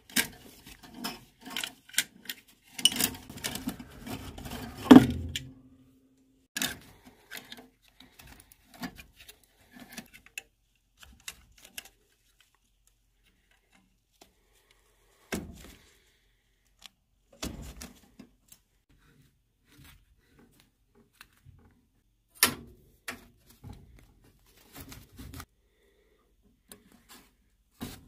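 Scattered clicks, taps and knocks of hands and tools working on a furnace gas valve and its wiring. A denser, louder clatter comes in the first few seconds, then only occasional clicks.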